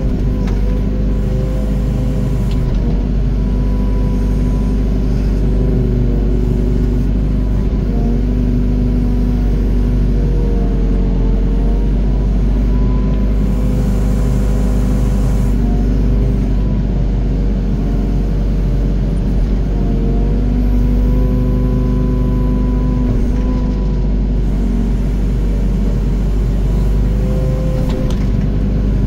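Doosan DX55 mini excavator's diesel engine running steadily under work, its pitch dipping and recovering slightly a few times as the hydraulics take the load of digging and dumping soil.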